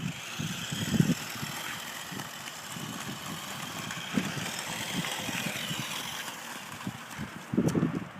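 Electric drive motor of a remote-control toy Jeep whirring steadily as it drives, over an uneven low rumble.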